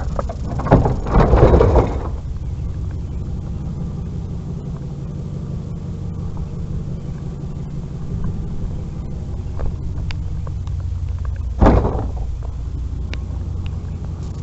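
Vehicle engine running steadily with a low hum, with a few knocks in the first two seconds and one loud thump at about twelve seconds.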